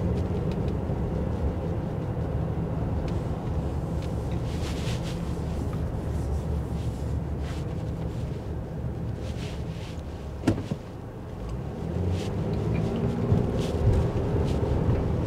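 Car engine and road noise heard from inside the cabin while driving, with one sharp click about ten and a half seconds in. Just after the click the sound dips briefly, then the engine note rises as the car picks up speed.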